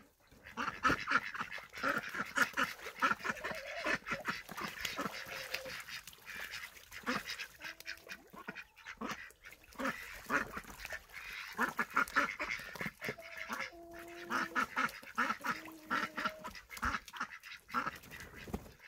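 A flock of domestic ducks quacking and chattering almost without a break, with a few longer, lower calls in the middle and toward the end.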